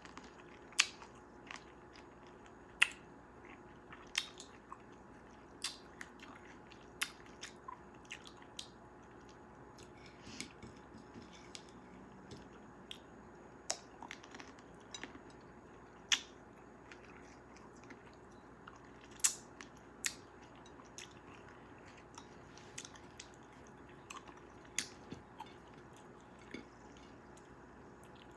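Close-miked chewing and biting of fresh cherries: sharp, irregular wet clicks and pops about once or twice a second. The loudest come about one and three seconds in, and again around sixteen and nineteen seconds.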